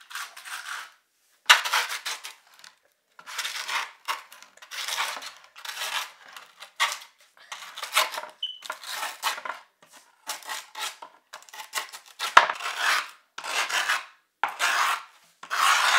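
Metal socket end of a skate tool scraped along the edge of skateboard grip tape, about one scraping stroke a second, scoring the grip tape along the deck's outline so it can be trimmed.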